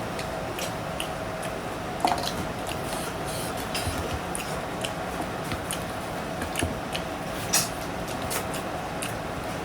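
Close-up eating sounds of pork ribs being chewed: wet chewing, smacking and small clicks over a steady background hiss. A sharper click comes about two seconds in and another about seven and a half seconds in.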